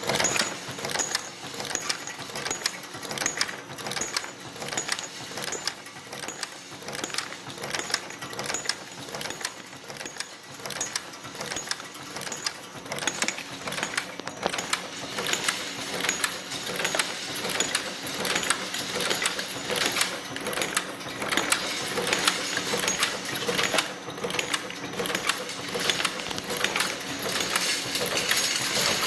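Fidelity case-trim machine running with its vibratory bowl feeder, brass cartridge cases rattling and clinking through the feed in a rapid metallic clatter over a steady high whine.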